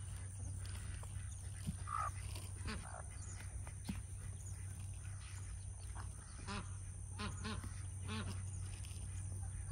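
Chickens, hens and a rooster, clucking and squawking in short scattered calls as they feed, with a run of calls about two-thirds through. A steady low hum sits underneath.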